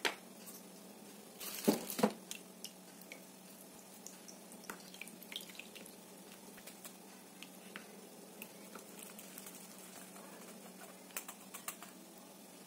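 Crepe batter being strained: a silicone whisk stirs and taps inside a metal mesh sieve, with small irregular clicks and drips of batter falling into the bowl. A couple of louder knocks come about two seconds in.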